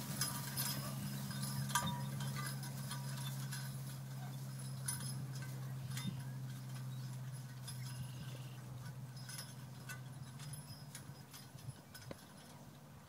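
Team of Belgian draft horses pulling a riding plow: harness and plow metal clinking and rattling with hoofbeats, growing fainter as the team moves away. A steady low hum runs underneath.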